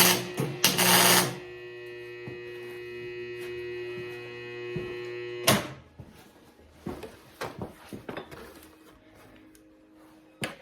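Welding machine humming steadily, with a short burst of arc welding crackle at the start; the hum cuts off about five and a half seconds in, followed by light metal clinks and knocks of steel parts being handled.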